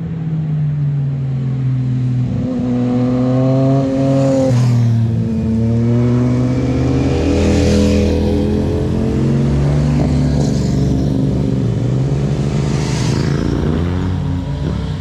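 Motorcycle engines revving and riding past one after another on a winding road, about four pass-bys, the engine pitch rising and falling as they shift and go by.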